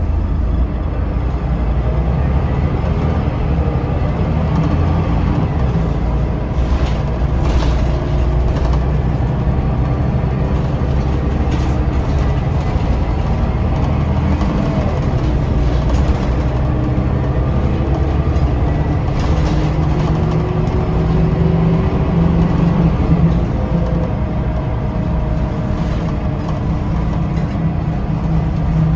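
Scania L94UB city bus with its DC9 nine-litre five-cylinder diesel running under way, heard from on board, the engine note climbing in stretches as it picks up speed, with a few brief rattles.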